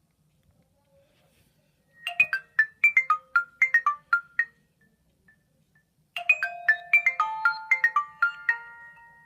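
Nokia 515 ringtone played on a Nokia 7100 Supernova phone. A quick phrase of short, bright pitched notes starts about two seconds in. After a short pause the phrase repeats about six seconds in, this time with some notes held and overlapping.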